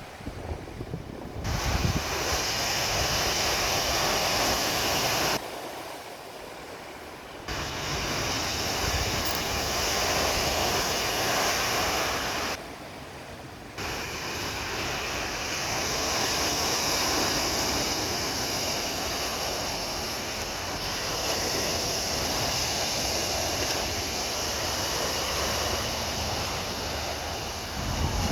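Steady rush of sea surf with wind on the microphone. The sound drops abruptly and returns a few times, as clips are cut together.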